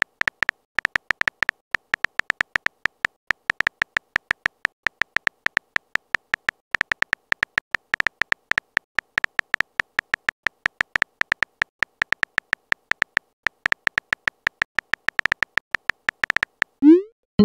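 Phone-keyboard typing sound effect: rapid, irregular clicks, several a second, as a text message is typed out. Near the end a short rising swoop and a pitched chime sound as the message is sent.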